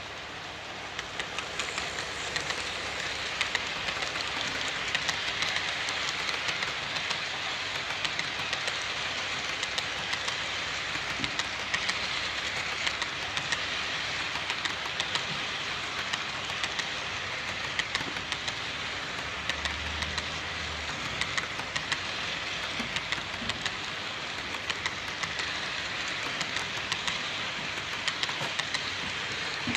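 Freight train running past on jointed track: a steady rumble and rush of wagons with rapid wheel clicks over the rail joints, building over the first couple of seconds and then holding.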